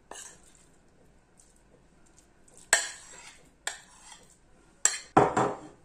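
Metal spoon clinking and scraping against a white ceramic dish while scooping out cooked onions: a few sharp clinks about three, four and five seconds in, then a louder, longer scrape near the end.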